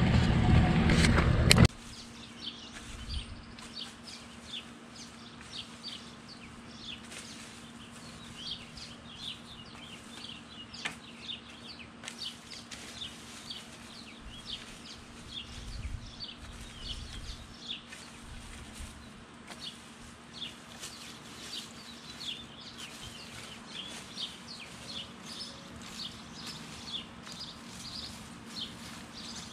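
A loud rush of noise cuts off suddenly about a second and a half in. Then small birds chirp in quick repeated calls over a low steady hum, with occasional scrapes of a metal rake through wood-chip mulch.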